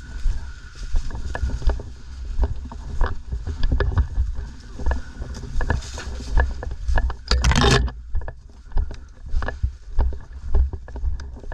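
Footsteps and rattling gear of an airsoft player walking: low thuds about once a second with many small clicks, and a short hiss about seven seconds in.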